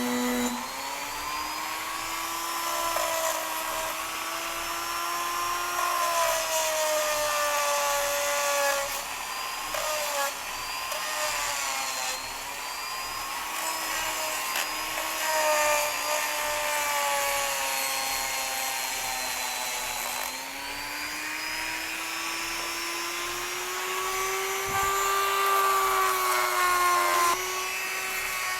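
Electric power tool running with a steady motor whine and a hiss above it. The pitch sags and recovers slowly over several seconds as the load on it changes, dipping around twenty seconds in and climbing toward the end.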